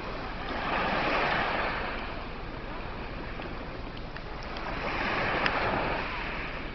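Small sea waves breaking and washing up a pebble beach, two surges that each swell and fade over a second or two.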